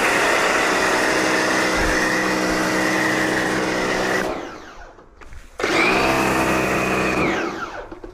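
Bosch electric pressure washer motor running, then winding down and stopping about four seconds in. It starts up again with a rising pitch about a second and a half later, runs briefly and winds down again near the end.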